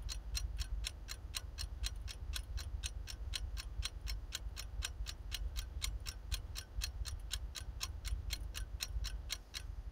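Stopwatch ticking sound effect, a steady run of sharp ticks at about four a second, over a low steady hum, marking time passing while a render runs.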